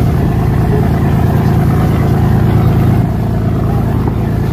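Boat engine running steadily, a low, even drone.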